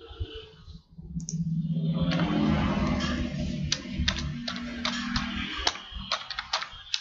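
Background music with steady low notes, and computer keyboard keys clicking in an irregular run from about halfway through as typing starts.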